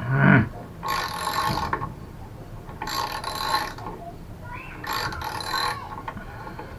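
Socket ratchet wrench clicking on a mobility scooter's front wheel axle nut, worked in three short strokes of rapid clicks about two seconds apart. A brief louder low sound comes right at the start.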